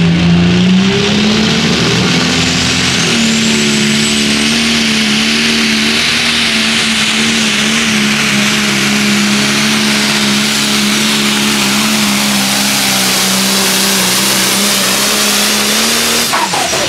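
Turbocharged diesel engine of a pulling tractor at full throttle, hauling the sled down the track. It makes a loud, steady drone that climbs in pitch twice in the first few seconds, then holds, and cuts back near the end as the pull finishes.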